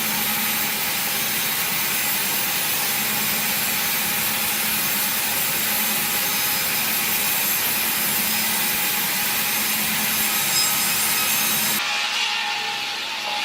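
Sawmill saw cutting through wood, a steady, dense sawing noise with a machine hum under it. The sound changes abruptly near the end.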